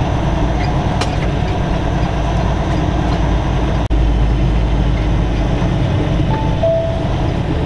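Semi truck's engine and road noise heard from inside the cab while driving, a steady low rumble. It drops out for an instant about four seconds in.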